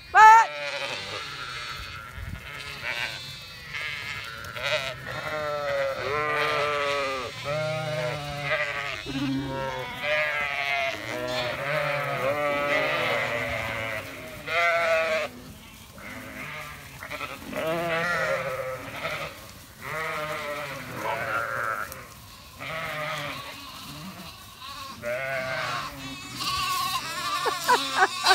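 Zwartbles ewes and lambs bleating over and over as the flock comes in at feeding time: many overlapping, wavering calls with short pauses between them. A sharp, loud sound comes right at the start.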